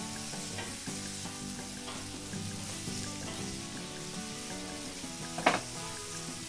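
Sliced onions and mushrooms sizzling in hot oil on an iron griddle over charcoal, stirred with a metal spatula. A sharper scrape of the spatula comes about five and a half seconds in.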